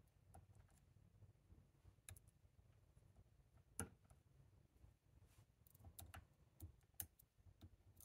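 Faint, irregular small metallic clicks of a hook pick working the pins of a Chicago Lock Co tubular lock held under tension. Two sharper clicks stand out, about four seconds in and again about seven seconds in.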